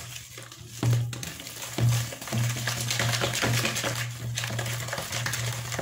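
A wire whisk stirring flour into a wet batter in a plastic bowl, with repeated scraping strokes. Under it runs a steady low hum that swells briefly about one and two seconds in.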